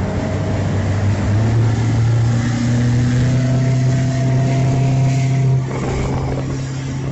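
Motorboat engine running under way at speed, a steady low hum with a hiss over it; the engine pitch rises a little about a second in and the sound eases slightly near the end.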